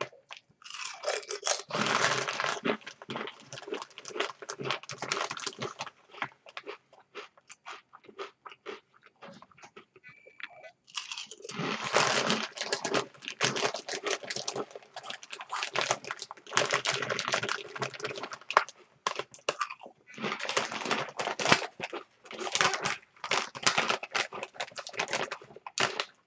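Someone crunching and chewing potato chips, in three long spells of dense crunching with sparser crackles between them.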